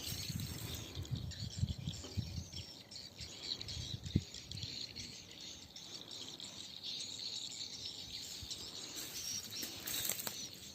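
Outdoor ambience of insects chirring and birds chirping, with irregular low thuds over the first few seconds and one sharp knock about four seconds in.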